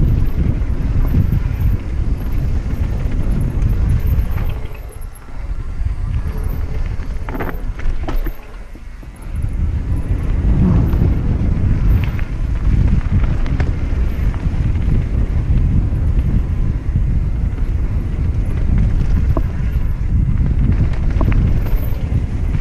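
Mountain bike riding down a trail: heavy wind rumble on the microphone mixed with the clatter and sharp knocks of the bike over the ground. The rumble drops away briefly twice in the first ten seconds.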